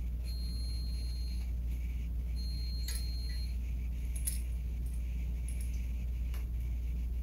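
Small metallic clicks and light rattles from handling bike brake lever and cable parts, three or so soft clicks spread through, with two brief thin squeaks early on, over a steady low hum.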